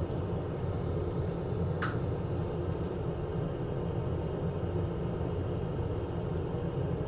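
Steady low hum of an electric fan or blower running at the repair bench, with a few faint light ticks over it.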